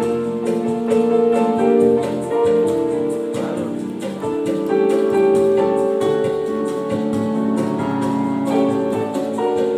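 Yamaha PSR-S series arranger keyboard played with both hands: held chords under a melody, the chords changing every second or so.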